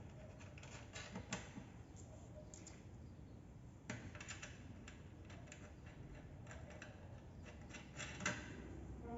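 Faint, scattered light metal clicks and taps from a new suspension ball joint and its bolts being handled and fitted to a lower control arm. Two sharper knocks come about 4 s in and just after 8 s.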